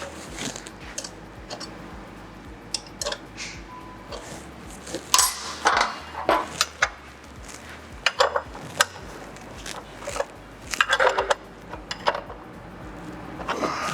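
Irregular metallic clinks and knocks of wrenches against the motorcycle's rear axle, chain adjusters and drive chain, some in quick little clusters.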